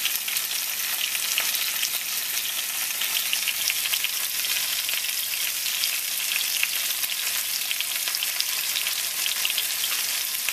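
Chicken thighs frying in hot vegetable oil in a skillet: a steady sizzle with many small crackles.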